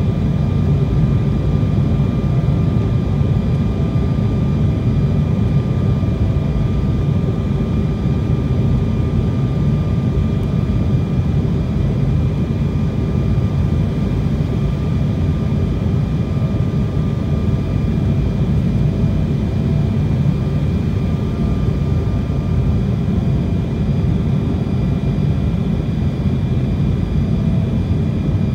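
Steady airliner cabin noise during the descent to land: a low drone of engines and rushing air, with a faint steady whine above it.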